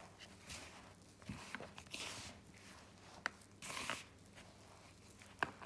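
Hand rubbing and crumbling a dry mix of wheat flour, grated potato, spices and a little oil in a plastic bowl: faint, irregular rustling and scraping, with a few sharp ticks.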